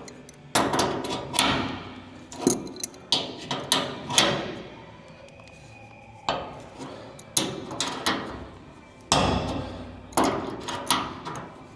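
A dozen or more sharp metallic knocks in irregular clusters, each ringing briefly, as a drain plug is worked into an in-bed fuel tank.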